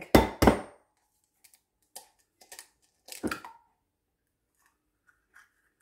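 An egg is rapped twice sharply against the rim of a glass bowl to crack it. Fainter clicks and crackles follow as the shell is prised open, with a sharper snap about three seconds in.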